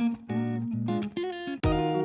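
Background music: plucked guitar notes.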